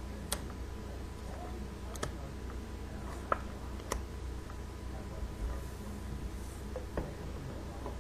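Playing cards dealt one at a time onto a wooden table, each landing with a short, sharp tap, several taps a second or more apart, over a faint steady low hum.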